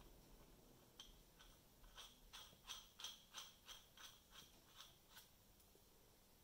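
Faint, light clicks and taps of small metal parts being handled against steel pipe pieces, a few a second, stopping about five seconds in.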